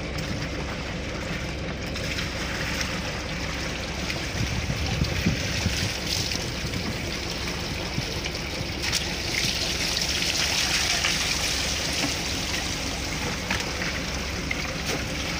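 Water trickling and splashing on the wet deck of a wooden fishing boat, with the low steady hum of the boat's engine running underneath.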